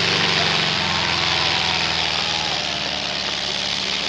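Modified pulling tractor's racing engine running hard as it drags the weight sled: a steady engine note under a heavy hiss, fading a little near the end as it moves away.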